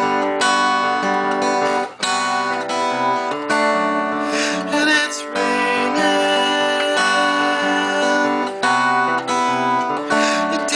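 Acoustic guitar strummed without vocals, sustained chords changing every second or so, with a brief break about two seconds in.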